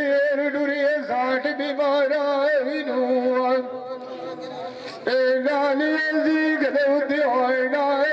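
Saraiki dhola folk singing: a man's voice holding long, high notes with wavering ornaments between them. The singing falls to a quieter passage for about a second and a half midway, then comes back strongly.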